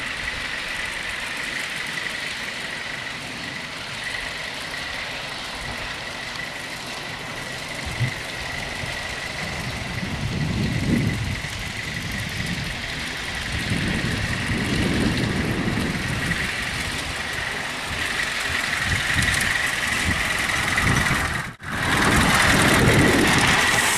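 5-inch gauge GWR 61XX live steam locomotive running on a ground-level track: a steady steam hiss with a thin high tone, and a low rumble that swells several times as the engine and its riding car pass close.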